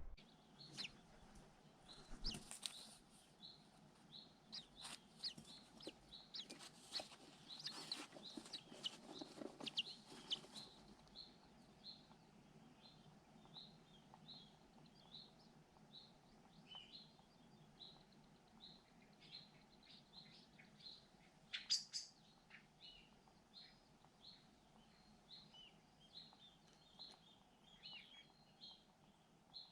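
Faint bird song outdoors: a thin high note repeated about twice a second, with an occasional lower chirp. Scattered clicks and rustling of handling noise fill the first ten seconds or so.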